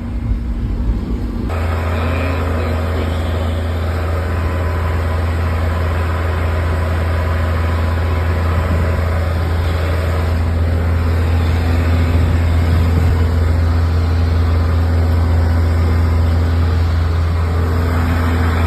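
A large engine running steadily at one constant speed, a strong low drone that comes in sharply about a second and a half in.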